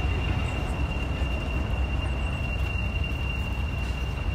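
Heritage diesel locomotive idling: a steady low rumble with a thin, steady high-pitched whine over it.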